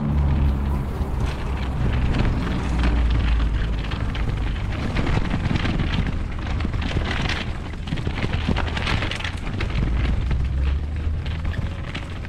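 Wind buffeting an outdoor microphone: a steady low rumble with crackling.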